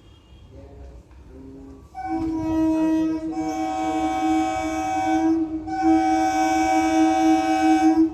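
EMU local train's horn sounding one long steady blast that starts about two seconds in, after a few short, quieter notes.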